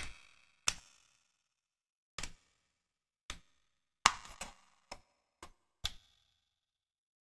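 Card 3D puzzle pieces clicking and tapping as fingers handle them and press them into their slots. There are about eight sharp, irregular clicks, with a quick cluster of them about four seconds in.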